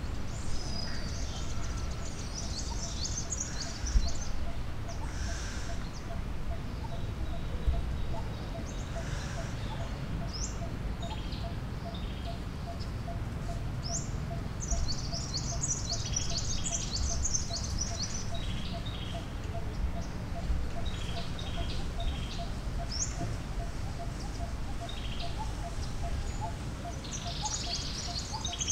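Wild birds chirping and twittering in high, quick bursts, busiest about halfway through and again near the end. Under them runs a faint, steady series of quick repeated notes, with a low background rumble.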